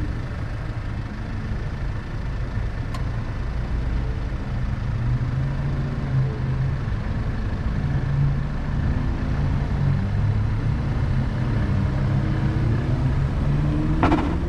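Car engine running steadily, its pitch drifting slightly, with a sharp click about three seconds in and a knock near the end.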